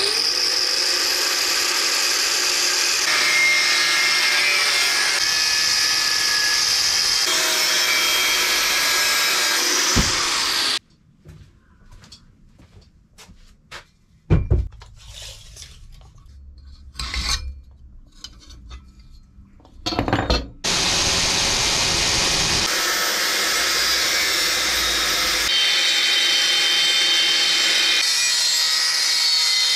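Power tools working metal, running in long loud steady stretches that change abruptly from one cut to the next. A quieter stretch in the middle holds a few sharp knocks.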